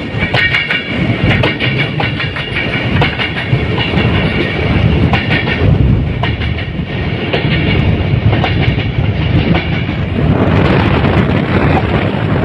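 Diesel locomotive 3013 running at speed, heard from its outside walkway. A steady low rumble carries many sharp clicks from the wheels passing over rail joints, and a heavier rush of noise comes in about ten seconds in.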